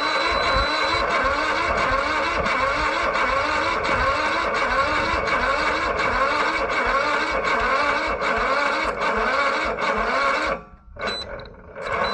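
Electric starter slowly cranking a cold lawn tractor engine that does not fire, a rhythmic rise-and-fall whine a little under twice a second. It stops about ten and a half seconds in, then cranks again in two brief bursts. The slow cranking is a sign of a weak battery in the cold, and the owner doubts it is getting enough spark.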